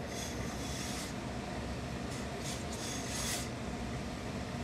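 Hose-fed tailor's steam iron pressing a folded suit-jacket hem, giving short hissing bursts of steam: a longer one at the start, then three short ones about two to three and a half seconds in. A steady low hum lies underneath.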